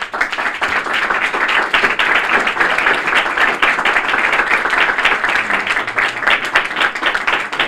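Audience applauding at the end of a talk: many hands clapping in a dense, steady patter that starts suddenly.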